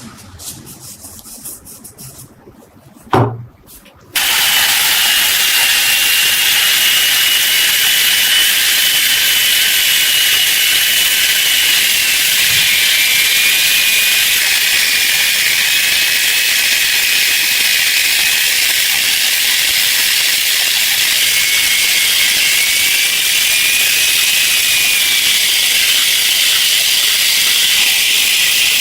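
A few light clicks and one sharp knock, then about four seconds in a loud, steady hiss from a pressurised jet starts, carrying a faint wavering whistle.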